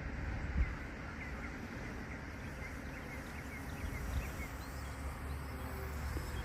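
A small bird chirping in a quick series of short notes, several a second, the notes going higher later on, over a steady low wind rumble on the microphone.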